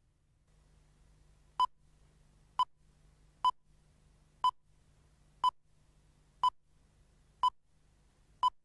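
Countdown leader beeps: eight short, identical tone beeps, one a second, each marking a number of the countdown. A faint low hum runs underneath from about half a second in.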